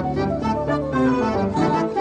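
Opening-credits theme music, with held notes that shift in pitch.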